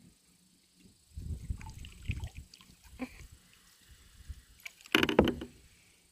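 Canoe sounds: low knocks and rumbles of gear being handled in the hull and water lapping, then a short loud rush of noise about five seconds in as a lure hanging from the fishing rod is cast out.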